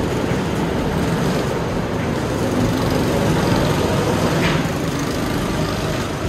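Several go-kart engines running as karts lap the track, the sound swelling a little a few seconds in as a kart comes closer.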